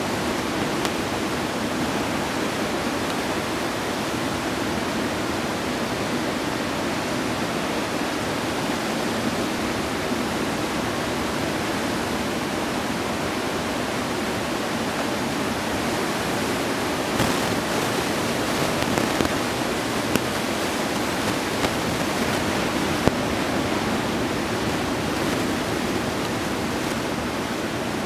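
Ocean surf breaking on a reef, a steady rushing wash of water noise.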